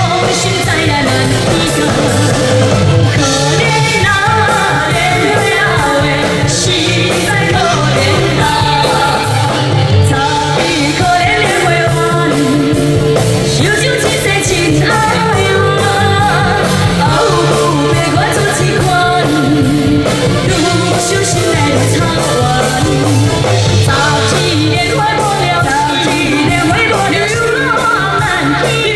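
Two women singing a duet into microphones over loud amplified band music with a steady beat.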